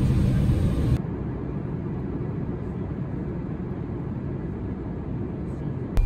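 Steady low rumble inside an airliner cabin on the ground. About a second in it drops to a quieter, duller rumble.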